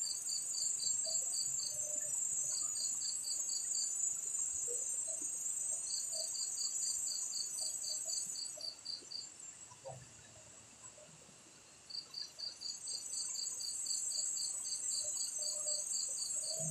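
Night insects calling: a high continuous trill that stops about eight seconds in and starts again some four seconds later, over a second insect chirping in quick pulses, about five a second, in short runs.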